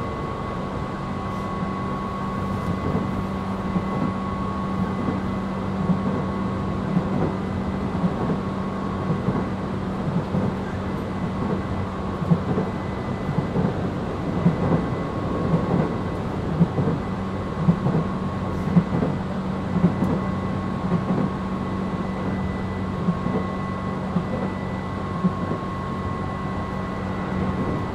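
Inside a Tobu 8000 series electric train car: a steady electrical hum from the car's equipment over a low rumble, with irregular short knocks and clatter that grow more frequent about halfway through.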